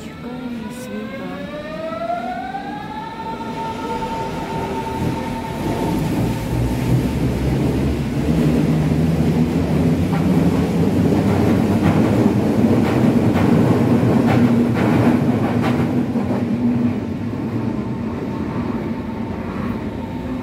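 Berlin S-Bahn class 481 electric train pulling away from the platform. Its traction motors whine, rising in pitch over the first few seconds and then holding steady, while the rumble of wheels on the rails builds as the cars pass close by. A run of clicks from wheels over rail joints comes in the middle, and the sound eases near the end.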